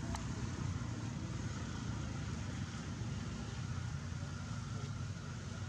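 Steady low rumble with an even hiss over it, outdoor background noise with no distinct event, and a single faint click just after it begins.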